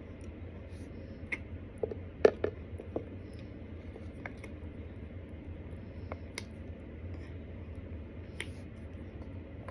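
Scattered small clicks and crunches of someone eating powdered starch with a spoon from a plastic jar, the loudest about two seconds in, over a steady low hum.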